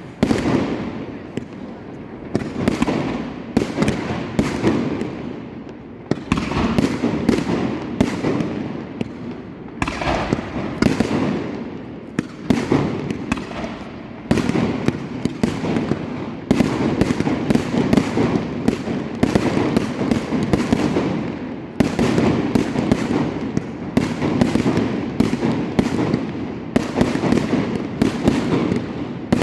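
Aerial fireworks display: a continuous barrage of overlapping bangs and crackles, coming in dense surges every few seconds.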